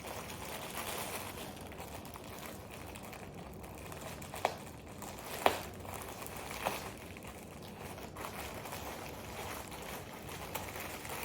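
Packaging being worked open by hand, a steady crinkling and rustling with three sharp snaps in the middle.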